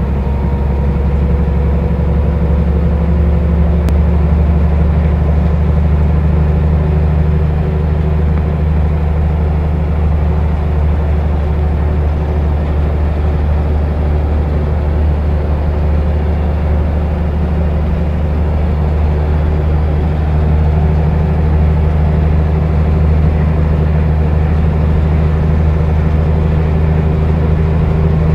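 Volvo B7R coach's straight-six diesel engine running steadily as the bus cruises, heard from inside the passenger cabin as a loud, low drone mixed with road noise.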